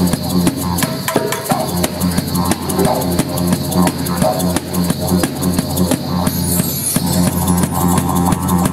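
Didgeridoo drone played in a steady pulsing rhythm, with a hand shaker and drum beats keeping time alongside it.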